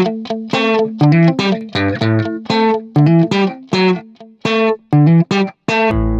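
Background music: a plucked guitar picking out a quick run of short notes over a held low note, with a bass coming in near the end.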